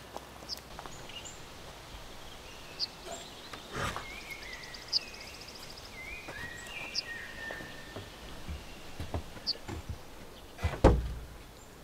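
Songbirds calling in a forest, short whistled notes and a brief trill, while a plank door of a wooden shed is opened and handled with a few knocks; a heavy wooden thump near the end is the loudest sound.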